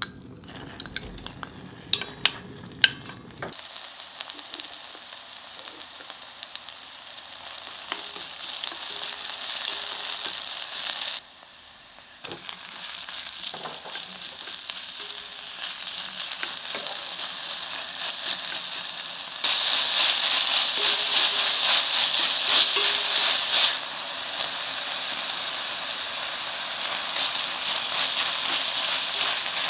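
Oil sizzling in an enamelled cast-iron pot as chopped green onion, then ground pork and sliced onion, are stir-fried and stirred with a wooden spatula. A few clicks come first; the sizzle starts a few seconds in, drops out briefly near the middle, and is loudest for a few seconds about two-thirds through.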